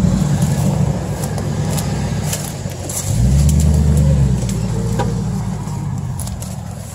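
Ford F-150 pickup's engine revving under load as the truck works its way over a stump under its front end in mud. It is revving hard at the start, eases off about a second in, and revs up again at about three seconds before dropping back, with scattered clicks over it.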